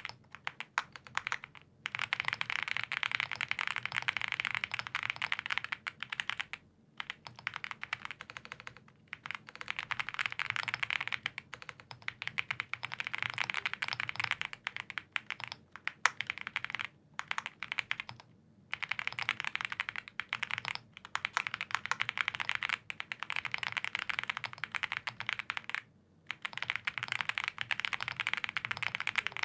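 Fast typing on a custom mechanical keyboard with lubed Gazzew Boba U4T tactile switches on a POM plate and GMK Klassiker keycaps: runs of rapid keystrokes a few seconds long, broken by brief pauses.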